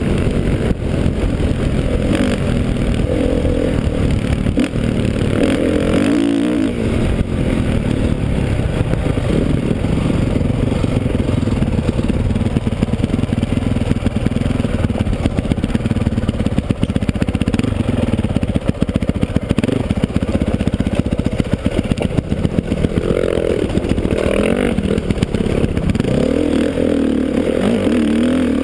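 Dirt bike engine heard from the rider's helmet, rising and falling with the throttle, with the bike clattering over rough ground. Near the end it revs harder as the bike climbs a steep slope.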